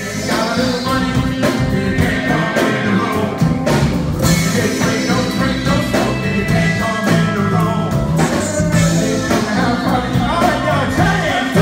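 Funk band playing: electric guitars, electric bass and drums on a steady beat, with a singer's voice over them.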